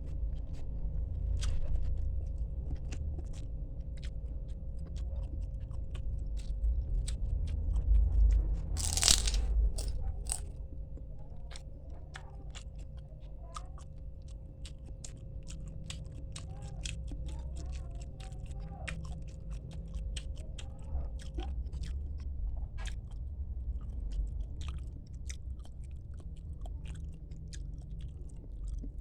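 A person eating close to the microphone, a mukbang meal of mujair fish (tilapia) with spinach: crunching bites and chewing, with many sharp mouth clicks throughout and a louder crunching burst about nine seconds in.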